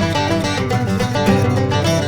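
Background music: an upbeat acoustic track of picked guitar and banjo in a bluegrass-country style.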